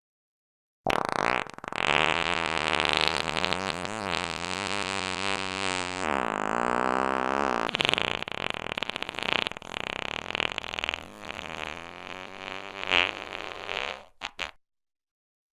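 One long fart sound effect: a fluttering rasp whose pitch wobbles up and down. It starts about a second in and stops about a second before the end.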